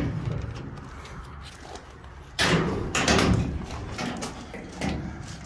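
Metal rear door of a van's utility service body being unlatched and swung open: a sudden clatter about two and a half seconds in, another shortly after, and a few lighter knocks near the end.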